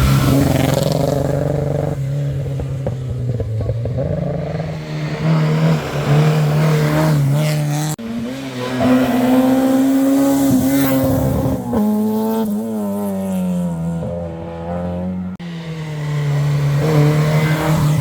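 Rally car engines at full throttle, revving hard and rising and falling in pitch through gear changes. The sound comes in several short shots cut one after another, with brief tyre noise.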